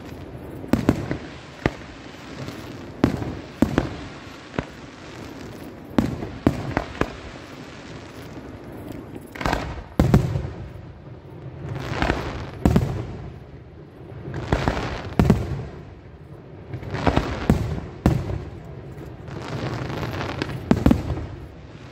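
Aerial firework shells bursting in a display: a run of sharp bangs about once or twice a second, then, from about halfway, longer and heavier booms.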